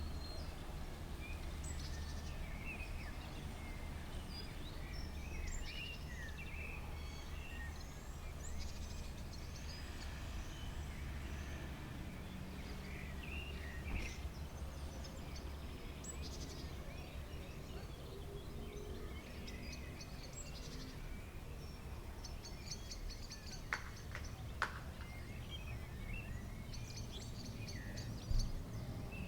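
Songbirds chirping and twittering, with a few quick trills of rapidly repeated high notes, over a steady low background rumble.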